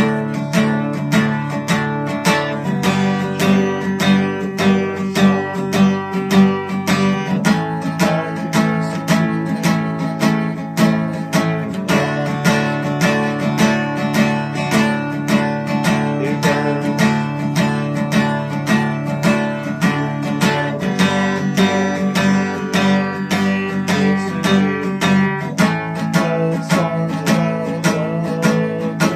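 Acoustic guitar strummed in a steady rhythm, without singing, the chord changing every few seconds.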